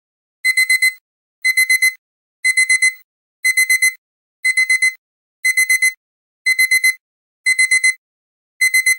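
Timer's end-of-countdown alarm: a digital alarm-clock beep in groups of four quick, high beeps, starting about half a second in and repeating about once a second, signalling that the countdown has run out.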